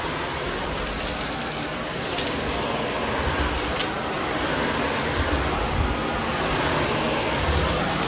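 Shark Navigator upright vacuum cleaner running steadily as it is pushed over carpet tiles, with a few small crackles as debris is sucked up.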